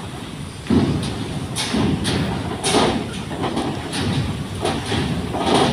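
Vehicles driving off a car ferry, with a string of irregular thumps and clanks, about one a second, as their wheels cross the steel ramp joints, over a low traffic rumble.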